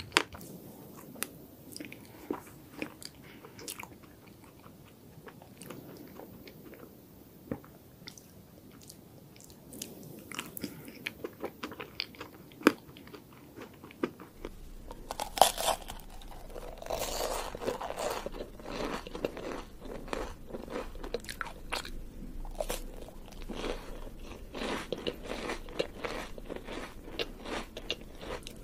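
Close-miked eating of ice cream desserts: mouth sounds of chewing with scattered sharp clicks, then from about halfway denser, louder biting and crunching.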